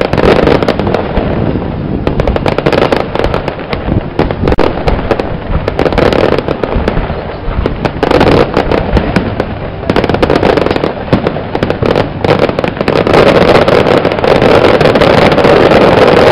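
Fireworks display: a dense, continuous run of crackling and popping from aerial shells and crackling comets, growing loudest in the last few seconds.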